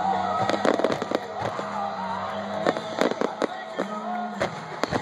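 Fireworks going off in clusters of sharp bangs and crackles, heard over music playing.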